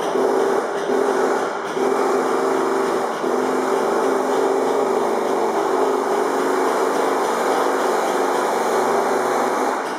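An electric machine running steadily, a continuous whirring hum with wavering tones.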